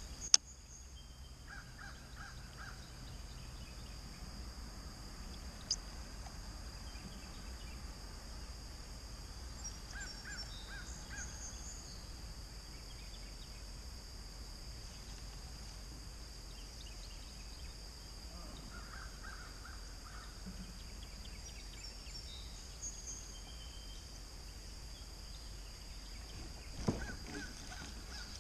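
Quiet outdoor ambience with a bird calling in short runs of a few quick notes every several seconds over a faint steady high background. There is a sharp click just after the start and another about six seconds in, and a louder knock near the end.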